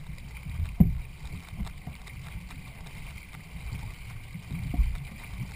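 Racing canoe under way: paddling and water against the hull, with wind rumbling on the microphone. Two sharp knocks, about a second in and near the end.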